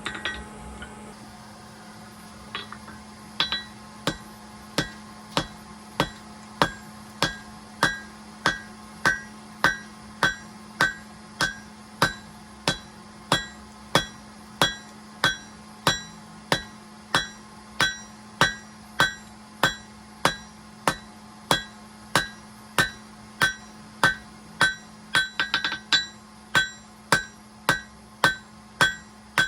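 Forging hammer blows on a Hay Budden anvil in a steady rhythm, about one and a half blows a second, each ringing at the same bright pitches; a quick flurry of lighter taps comes near the end. A steady low hum runs underneath.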